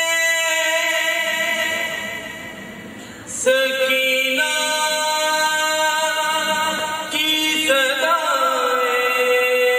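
Male voice chanting a noha, a Shia lament, unaccompanied through a microphone in long held notes. The line fades away a few seconds in, then a new phrase starts loudly about three and a half seconds in.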